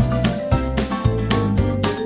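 Upbeat background music with a steady beat and plucked guitar-like notes.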